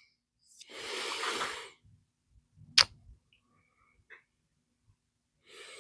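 Handling noise: a soft scrape lasting about a second, then a single sharp click a little under three seconds in, a few faint ticks, and another short scrape near the end.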